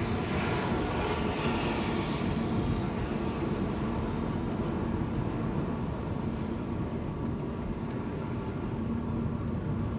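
Car cabin noise while driving: steady engine and road noise heard from inside the car, with a brighter hiss in the first couple of seconds that fades away.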